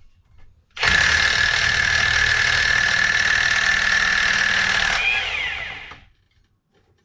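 Impact wrench hammering steadily for about four seconds on the retaining bolt of a Yamaha Wolverine X4's CVT primary (drive) clutch, spinning the bolt loose so the clutch can come off, then winding down.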